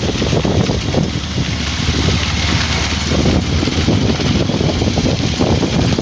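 Wind rushing over the microphone on a moving motorcycle, with the engine running steadily underneath.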